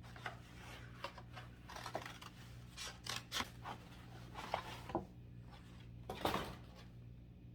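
Packaging being handled and opened: a run of irregular rustles and crinkles, the loudest a little past six seconds in, over a steady low hum.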